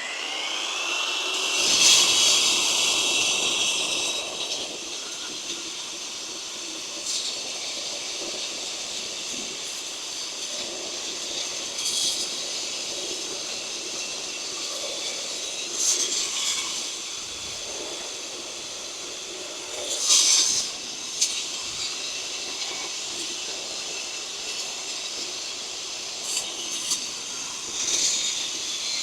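BODA BLC420 brushless concrete wall saw running: its motor spins up with a rising whine at the start, then runs at a steady high-pitched whine, with several brief louder surges.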